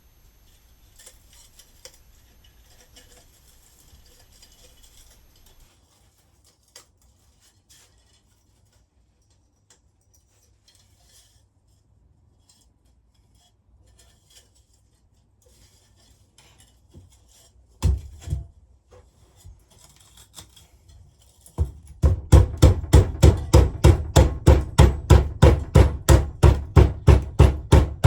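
Faint clinks and scrapes of metal parts being handled, then two sharp knocks, then a fast run of loud even hammering, about three or four blows a second, for the last six seconds while the electric melting furnace is being worked apart.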